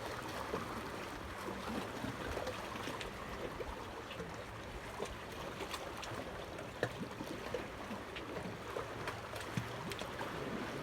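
Water lapping and trickling in a steady wash, with scattered small clicks and taps.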